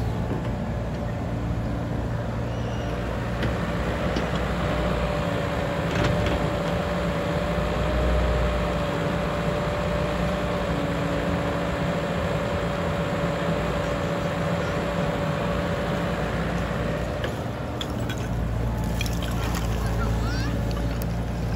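Komatsu PC78 compact excavator's diesel engine running steadily under load as it digs and swings, with a steady whine over the engine note that drops out a few seconds before the end.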